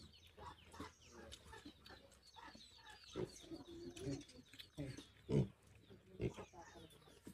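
A pig grunting in short, irregular bursts, with small birds chirping in the background.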